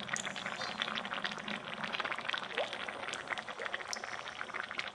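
Potato-and-fish curry (macher jhol) boiling in a metal pan: a steady, dense patter of many small bubbles popping.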